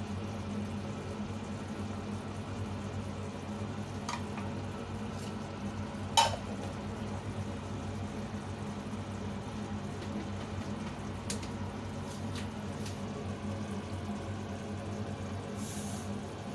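Tomato sauce simmering and bubbling in a frying pan over a steady low hum, with a few light clicks and one sharp knock about six seconds in.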